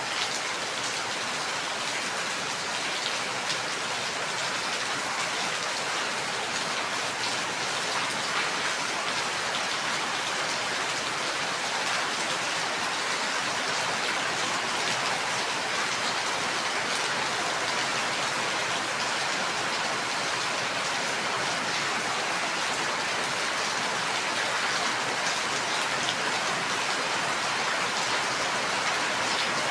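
Steady rain falling, an even hiss of many drops with fine patters of individual drops hitting a surface.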